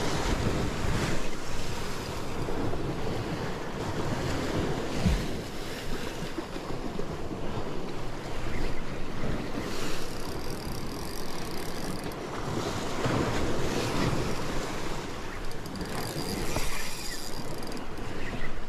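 Sea waves surging and washing against shoreline rocks, with wind buffeting the microphone.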